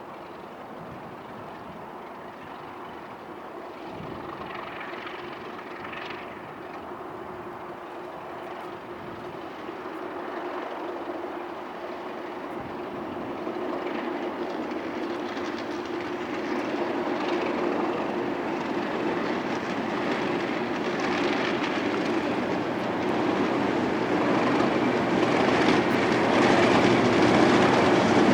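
Class 37 diesel locomotives hauling a train approaching, growing steadily louder, with a steady engine hum.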